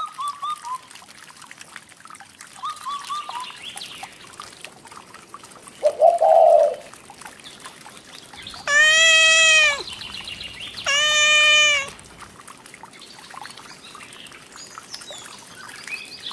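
A cat meowing: two loud, long meows about a second each, a second apart, after a shorter, quieter call and a few faint short chirps.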